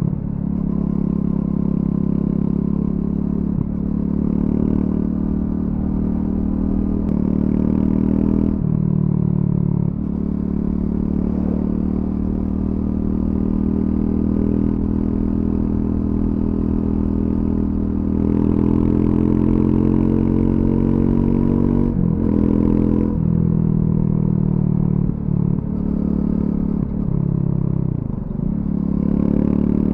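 Triumph Scrambler 400X's single-cylinder engine through its stock exhaust, pulling under throttle. The revs climb and drop several times at gear changes, with a long steady climb in the middle and a cluster of quick drops near the end.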